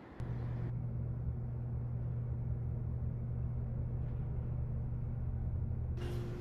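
A steady, low mechanical rumble with a constant hum that cuts in suddenly just after the start and cuts off at the end.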